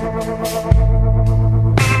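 Instrumental background music: sustained chords over a held bass note, the bass changing about two-thirds of a second in and the chord changing near the end.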